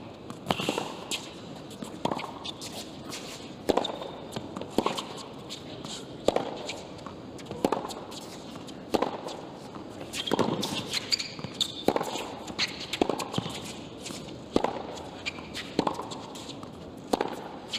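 Tennis ball struck back and forth by rackets in a long baseline rally on a hard court: a sharp pop about every second and a half, with fainter bounces between.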